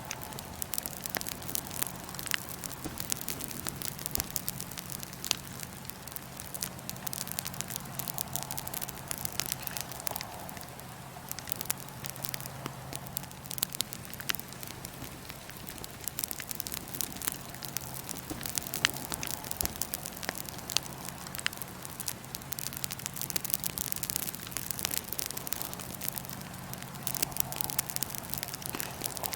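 Wood fire in a fire pit crackling, with many small sharp pops of burning wood throughout and a steady low hum underneath.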